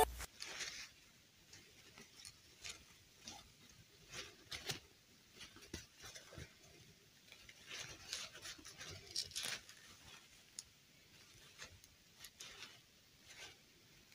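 Faint, scattered rustles and light clicks of hands handling a plastic fashion doll and smoothing its satin dress, coming at irregular moments.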